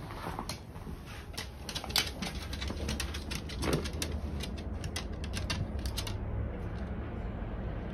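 A run of light, irregular clicks and taps, thick in the first six seconds and thinning out after, from a leashed beagle in harness moving about on a hard floor. A low steady hum lies underneath.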